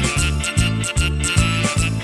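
Background music with a steady, bouncy bass beat, about four notes a second.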